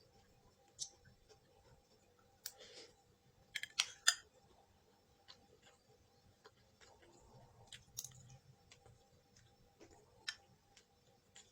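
Eating sounds at a meal: scattered light clicks and taps, as of utensils against a bowl, with a quick run of sharper clicks about two and a half to four seconds in.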